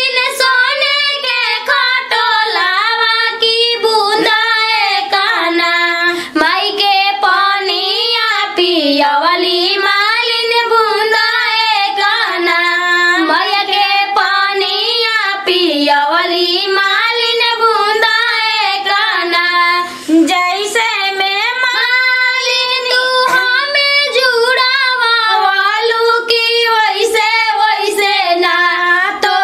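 A high-pitched woman's voice singing a winding folk melody over a steady held drone note, with no drums.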